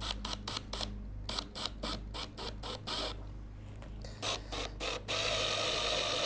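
Flathead screwdriver driving a small screw into wood: a quick run of clicks, then a steadier grinding scrape from about five seconds in as the screw bites.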